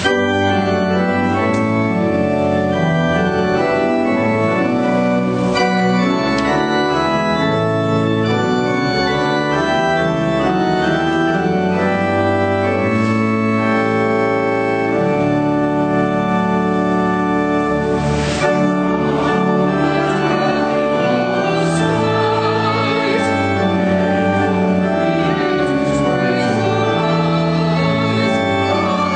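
Organ playing a hymn in sustained, changing chords.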